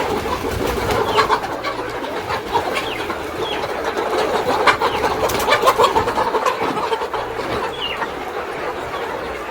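A large flock of chickens clucking and squawking in a dense, unbroken chorus, with scattered short clicks and knocks mixed in; the birds are agitated and frightened while their floor sawdust is being changed.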